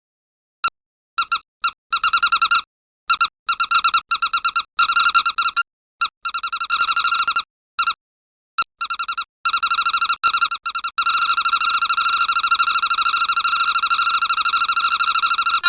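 Squeaky rubber dog toy squeezed rapidly, giving quick stuttering high-pitched squeaks in short bursts separated by brief gaps, then one long unbroken run of fast squeaks over the last few seconds. It is used as Foley for the chattering of cartoon birds.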